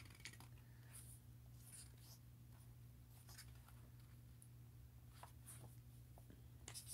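Faint rustling and scraping of a picture book's pages being turned and handled, short scratchy sounds about every second, over a low steady hum.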